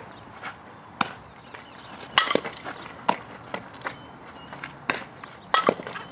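Sharp knocks of a softball fielding drill: the ball being hit and smacking into leather gloves, several times, the loudest about two seconds in, with footsteps on the infield dirt.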